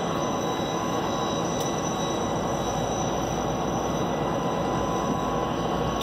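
EMD GP-series (geep) diesel locomotives idling together: a steady engine rumble with a thin, steady high whine running over it.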